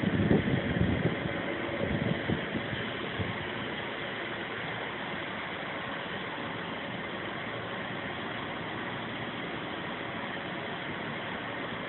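Steady fan-driven machinery running with an even whooshing hiss and hum, with a few irregular low rumbling bumps in the first three seconds.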